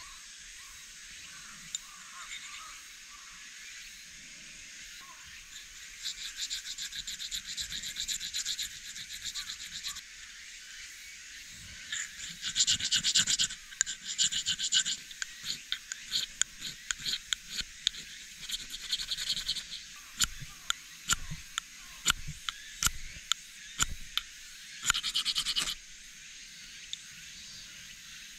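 Serrated steel striker of a Belmont ENBU fire starter scraped along its magnesium fire-starter rod in runs of rapid rasping strokes, then a handful of separate sharp strikes in the last third. The scraping is wearing the rod's coating off to bare the magnesium, and it throws few sparks.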